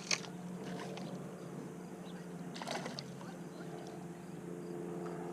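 A steady low mechanical hum, with two brief noisy bursts, one right at the start and one about three seconds in.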